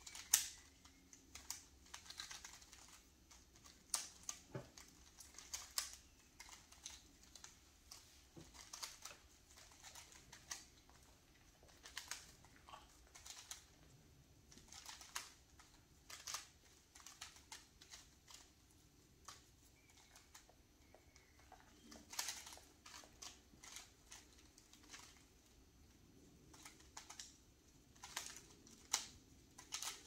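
Three plastic Rubik's cubes being twisted by hand at once: irregular, quick flurries of clicks and clacks as the layers are turned.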